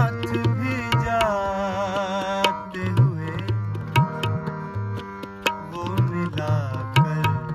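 Harmonium and tabla playing an instrumental passage of a ghazal, the harmonium sustaining reedy chords and melody under regular sharp tabla strokes. A wavering wordless vocal phrase rises over them in the first couple of seconds.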